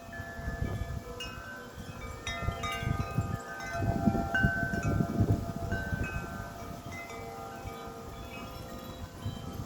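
Several wind chimes ringing in strong, gusty wind, many notes struck and overlapping as they ring on. Under them the wind rumbles, swelling about four to five seconds in.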